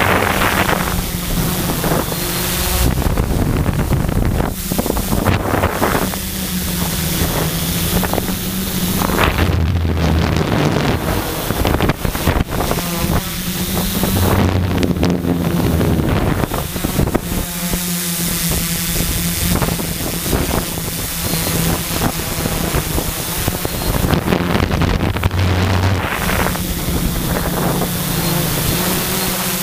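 Quadcopter's electric motors and propellers buzzing, heard from a camera mounted on the craft, the pitch stepping up and down every few seconds as the throttle changes. Heavy wind noise on the microphone runs through it.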